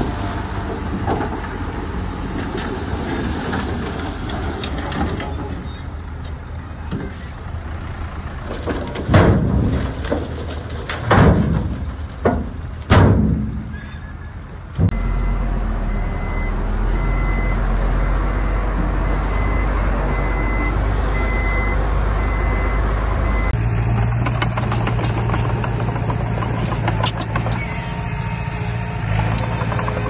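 Diesel engines of heavy earthmoving machinery running steadily, with a few loud surges about a third of the way through. After an abrupt change about halfway, a steady engine drone carries a regular high beeping from a reversing alarm for several seconds.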